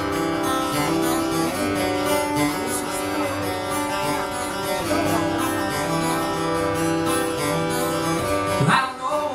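Acoustic and electric guitar playing an instrumental passage together, with held notes ringing on. Near the end a short, loud voice rises over the guitars.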